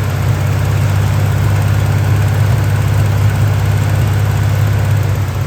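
Buick 225 odd-fire V6 idling steadily on a newly fitted Motorcraft two-barrel carburetor, running while its ignition timing is checked.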